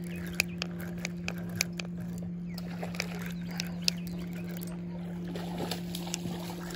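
A hooked fish fighting on a spinning rod: sharp irregular clicks from the spinning reel as the line is worked, and water swirling and sloshing where the fish breaks the surface, over a steady low hum.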